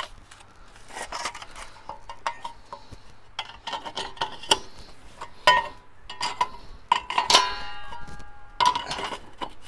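Thin sheet-metal side panels of a folding pop-up fire pit clinking and knocking as they are slotted onto its frame, a run of light clanks with one panel ringing for about a second late on.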